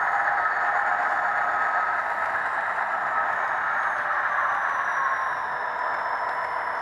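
GT22 diesel locomotive running with its train, a steady mechanical noise with faint whining tones that slide slowly in pitch.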